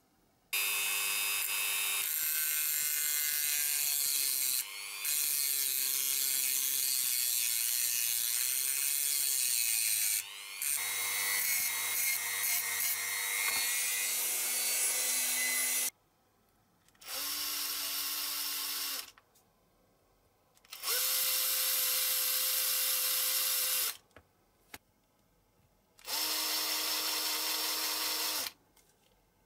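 Handheld electric drill boring into a die-cast metal toy boom arm. One long run of about fifteen seconds with the motor pitch wavering under load, then three shorter runs of two to three seconds each.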